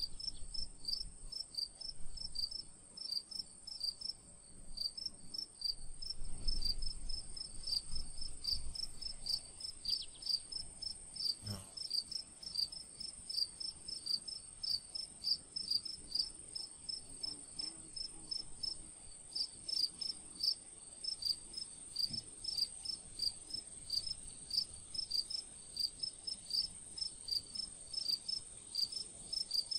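Insects chirping in an even rhythm, about two to three short high chirps a second, over a steady high-pitched whine.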